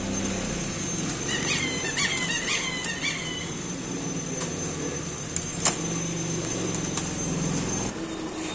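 Foam packing squeaking against the box in a quick run of short squeaks about a second in, as the packed amplifier is worked out of its carton. A few sharp clicks follow, over a steady hum that stops near the end.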